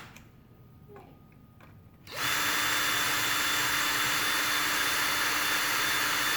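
Electric drill cutting away the head of a stripped screw. It is stopped for the first two seconds, with only a few faint ticks. It then starts again a little after two seconds in and runs steadily with a steady hum.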